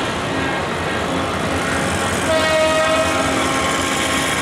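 Diesel locomotive running light along the track, its engine a steady noise, with its horn sounding about halfway through, one held blast that carries on to the end.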